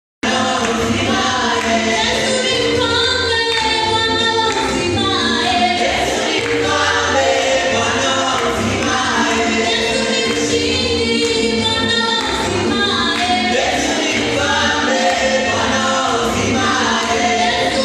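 Gospel choir singing over a band with a steady bass beat.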